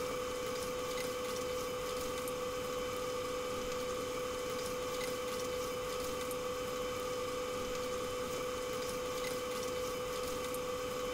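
Chicken wings deep-frying in hot oil, a steady bubbling sizzle with faint crackles and no spattering, as wooden spatulas stir them in a nonstick wok. A steady hum runs underneath.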